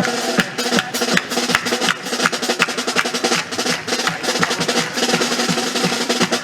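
Live carnival-band music: a snare drum and bass drum play a quick, driving rhythm of many strikes a second under held instrumental notes.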